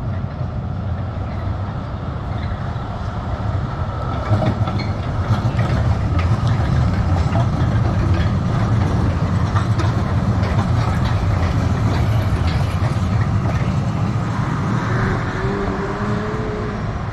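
Düsseldorf tram passing close by: a steady rolling rumble with a run of clicks from the wheels on the track. It grows louder about four seconds in and eases off toward the end, where a faint whine sounds briefly.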